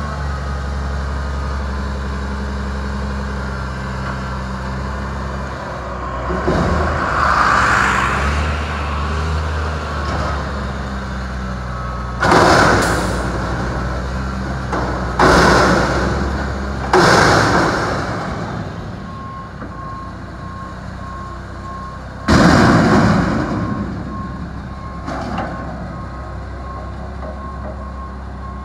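Mack MR688S front-loader garbage truck with a McNeilus Atlantic body: the diesel runs steadily, revs up as the arms raise a dumpster over the cab, then three loud bangs come as the upturned can is shaken out over the hopper, with one more bang a few seconds later. The reversing alarm beeps steadily through the last third as the truck backs up.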